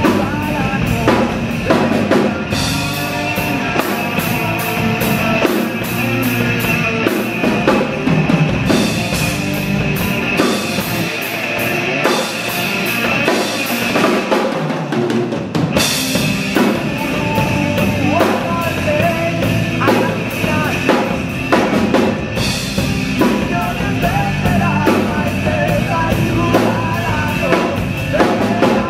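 Rock song driven by a drum kit played with sticks, with steady cymbal and snare hits over other instruments. Around halfway the deep bass drops out for a few seconds while the cymbals carry on, then comes back.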